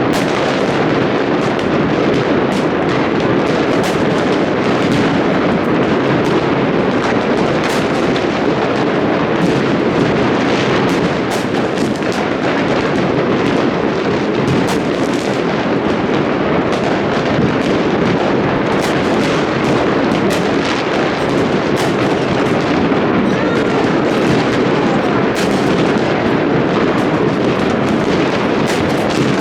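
A dense fireworks barrage: many shells going off at once in an unbroken run of overlapping bangs and crackles, without a pause.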